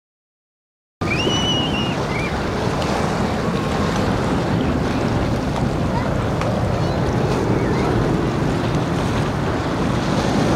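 After a second of silence, steady wind noise on the microphone over the wash of harbour water, with a few short high chirps about a second in.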